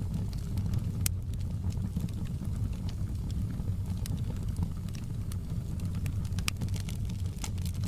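Wood fire burning in a fireplace: scattered sharp crackles and pops, a few louder ones about a second in, around the middle and near the end, over a steady low rumble of the flames.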